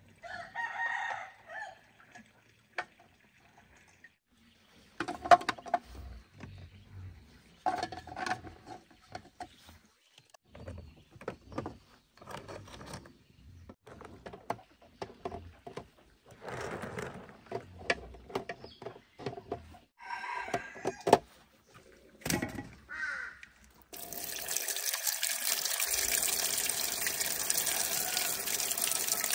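Boiled eggs clacking and knocking against a metal pot and each other as they are lifted out one by one, with a chicken call near the start. From about 24 s on, a steady stream of water splashes onto the eggs in the pot.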